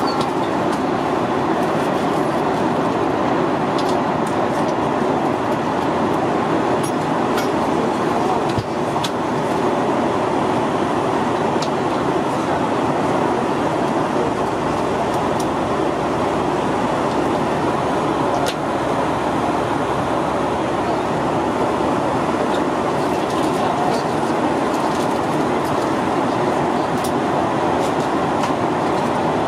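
Steady cabin noise of a Boeing 737-800 in flight, a constant even rush of air and engine noise, with a few faint clicks.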